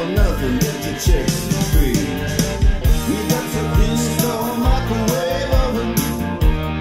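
A song with a singing voice and a steady drum beat, played back loud through a custom car audio system with Accuton tweeters and a 4-inch midrange.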